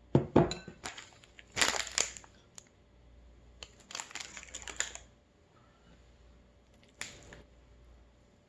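Close-up mouth sounds of eating noodles: wet slurping and chewing in four short, crackly bursts with pauses between.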